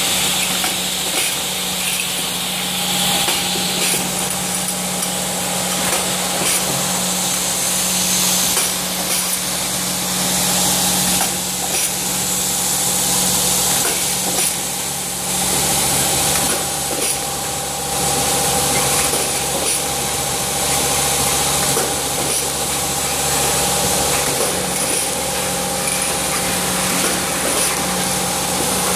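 Automatic cap assembly machine running: a steady motor hum with a fainter whine above it, under a hiss and a stream of irregular clicks and clatter from its pneumatic stations and the caps moving along the feed rails.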